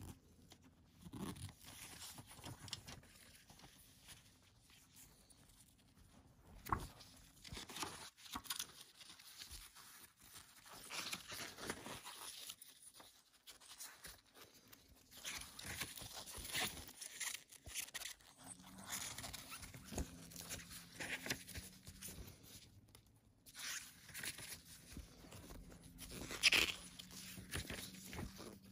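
Handling of a CD jewel case and its paper booklet. The booklet's pages rustle and crinkle as they are turned, with a couple of sharp plastic clicks early on and a louder rustle near the end.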